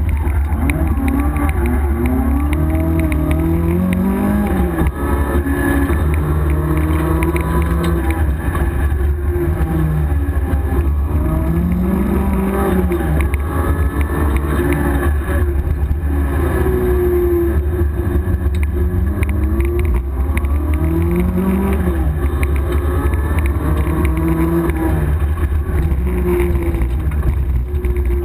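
Opel Manta GTE rally car's four-cylinder engine at full stage pace, heard from inside the cabin: loud and revving hard, its pitch climbing and dropping back again and again through gear changes and corners, over a constant low rumble.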